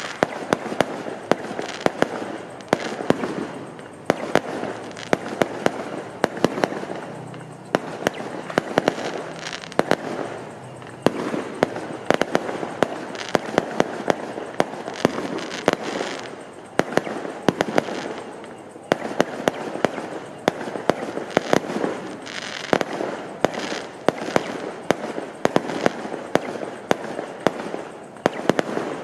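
Fireworks and firecrackers going off: a dense, irregular run of sharp bangs, several a second, over continuous crackling.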